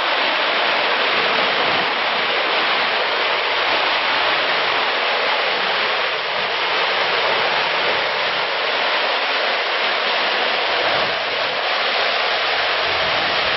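Whitewater rapids and a low waterfall on a mountain creek: a steady, loud rush of churning water.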